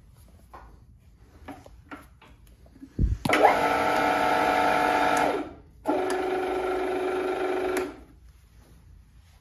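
Huvema HU 45 DM milling machine's electric motor, started with a thump and running with a whine for about two seconds, stopping briefly, then running again for about two seconds on a lower tone. A few faint clicks come before it.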